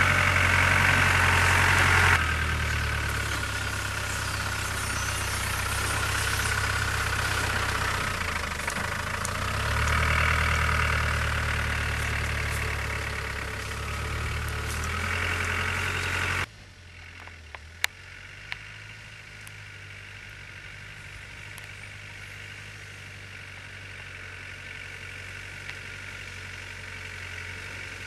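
Land Rover Discovery's 200Tdi turbodiesel engine running at low revs as the vehicle crawls along a narrow track, rising and falling in level. About sixteen seconds in the sound drops suddenly to a much quieter, steady engine running.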